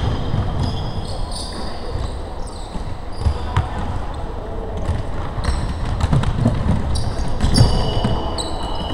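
Basketball game on a wooden gym floor: the ball bouncing, sneakers squeaking in short high chirps, and players calling out, all echoing in a large hall.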